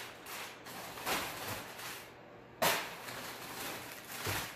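Crumpled brown kraft packing paper rustling and crinkling as it is pulled out of a cardboard box, with a sudden louder crackle about two and a half seconds in.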